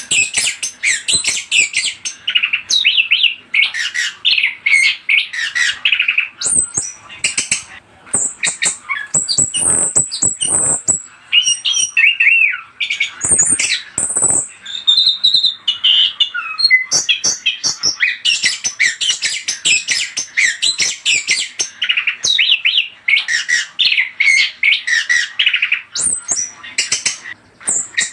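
Orange-headed thrush singing a long, rapid song of varied chirps, whistles and harsher notes, with a couple of brief pauses.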